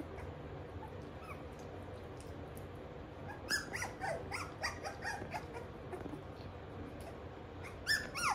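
Young schnoodle puppies, about 25 days old, whimpering and squeaking in short high calls that bend up and down in pitch. The calls begin about halfway through, with a louder cluster near the end.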